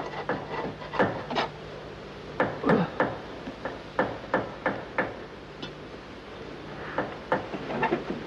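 A hand tool striking wood: about a dozen sharp knocks in quick groups of two to four, with a pause of a second or two partway through.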